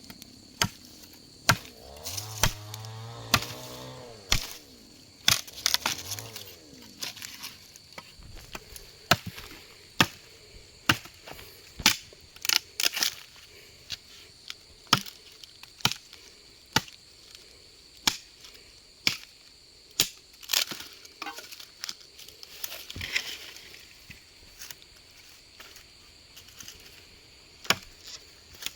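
Blade chopping into wood, sharp strokes about once a second that thin out and stop in the last few seconds.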